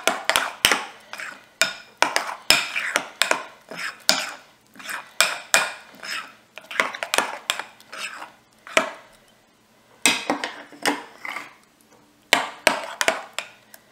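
A spoon stirring thick mango custard in a bowl, clinking and scraping against the bowl in quick, irregular strokes, with a couple of brief pauses.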